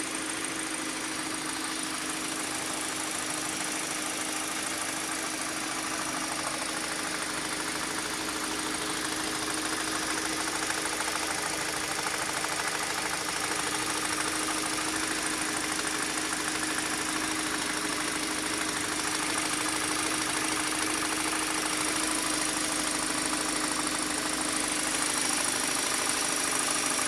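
2013 Kia Optima K5's 2.0-litre Nu CVVL four-cylinder engine idling steadily with a tapping noise, which the owner says goes away when the accelerator is pressed.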